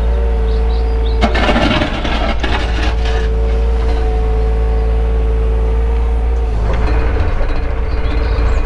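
Takeuchi excavator's diesel engine running steadily with a constant hydraulic whine, heard from inside the cab. Two spells of rough scraping come through, about a second in and again near the end, as the bucket works mud and leaves off the track side.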